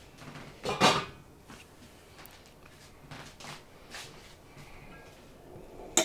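Kitchen dishes and utensils being handled: one loud clatter about a second in, then a few light knocks and clicks.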